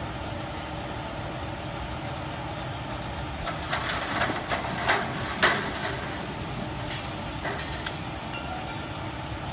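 A firefighter and his ladder crashing to the ground, thrown off when the hose was turned on: a run of clattering knocks from about three and a half seconds in, the loudest crash at about five and a half seconds, with a couple of lighter knocks later. A steady low rumble lies underneath.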